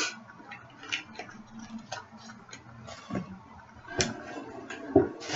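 Small items and packaging being handled: scattered light clicks and taps at an irregular pace, with two sharper knocks about four and five seconds in.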